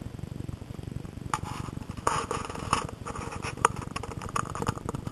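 Handling noise at ground level: scattered clicks and rustling of dry leaves and twigs as gloved hands work at the base of a tree, starting about a second in, over a steady low rumble.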